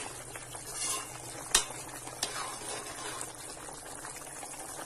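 Thick mutton gravy simmering and bubbling in ghee in a kadai as its water cooks off, the stage before the ghee separates. A single sharp tap about one and a half seconds in.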